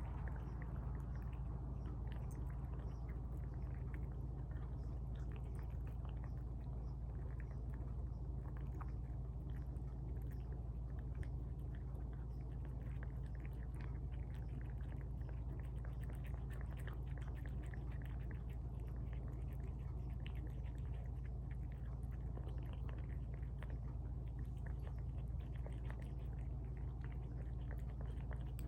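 Cats eating tuna from bowls: close, steady wet chewing, licking and smacking, with many small clicks, over a constant low hum.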